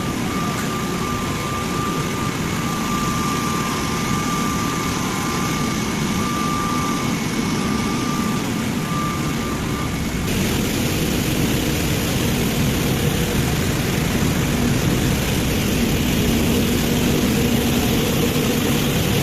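Glass-processing machinery running: a steady mechanical noise with a high whine, changing abruptly about halfway through to a louder, rougher steady noise without the whine.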